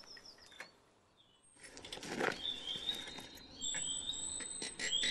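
Birds chirping in short, repeated high whistled notes. A rustling noise swells about two seconds in, with a few scattered clicks.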